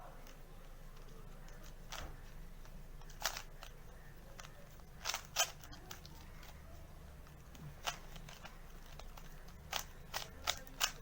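Rubik's cube being twisted by hand: its plastic layers click and clack in scattered short bursts, sometimes several in quick succession, over a faint steady low hum.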